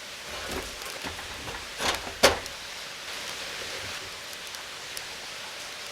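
Steady rush of a mountain stream, with a few light knocks and a short rustle, then one sharp clack a little over two seconds in.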